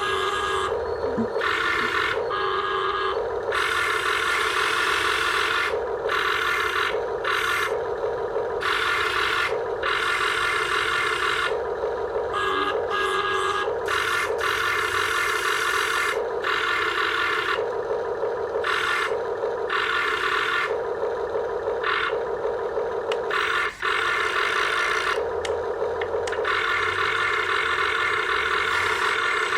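Radio-controlled toy backhoe's electric motors whirring steadily, with a harsher, higher-pitched grinding whine cutting in and out at irregular intervals.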